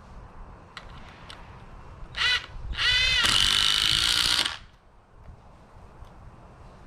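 Cordless drill driving a screw: a short spin-up burst, then a longer run of about a second and a half in which the motor rises in pitch and holds steady before stopping abruptly. A few light clicks come before it.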